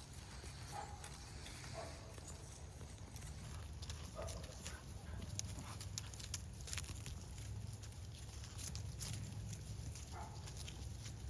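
Faint farmyard sounds while goats are fed: scattered clicks and knocks, like hooves and animals moving, over a low steady rumble, with a few short faint animal calls.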